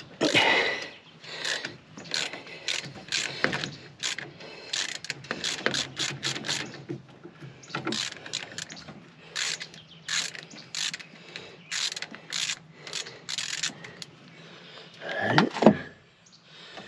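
Hand ratchet wrench clicking in irregular runs while bolts are worked during an air compressor swap on a DT466 truck engine. There is a louder scrape near the end.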